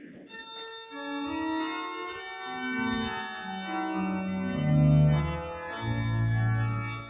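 Church organ starting to play, sustained chords over a moving bass line, swelling loudest about five seconds in.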